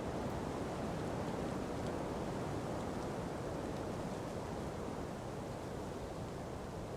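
Ocean breeze blowing through palm trees with surf beneath: a steady, even rushing that eases slightly about two-thirds of the way through.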